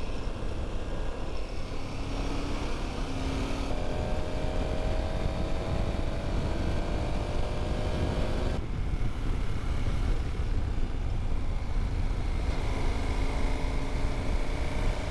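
Wind rushing over the microphone on a moving KTM 1290 Super Adventure S motorcycle, with the bike's V-twin engine running underneath. The engine note climbs slowly for several seconds as the bike speeds up.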